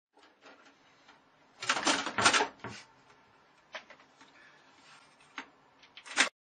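A cat's claws scrabbling and knocking against a computer tower case: a burst of scrapes and knocks about two seconds in, a few single clicks, and a final loud clatter near the end as the cat drops off.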